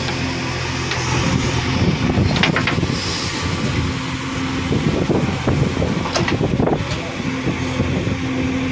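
Diesel engine of a JCB 3DX backhoe loader running steadily under load as the backhoe digs and dumps soil, with a few sharp knocks from the working arm and bucket about two and a half seconds in and again around six to seven seconds.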